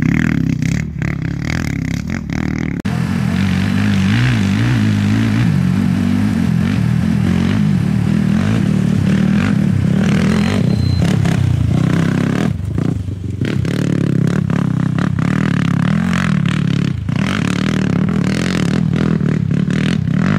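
Off-road race vehicle engine running hard as it approaches and passes close, its pitch rising and falling with the throttle.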